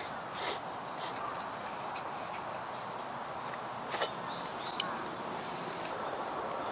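A person sipping hot udon broth from an instant-noodle cup: two short slurps near the start and another about four seconds in, with a small click shortly after, over a steady background hiss.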